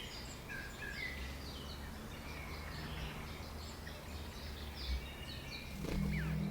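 Small songbirds chirping, many short scattered notes, over a steady low hum. Near the end, music with held low notes swells in.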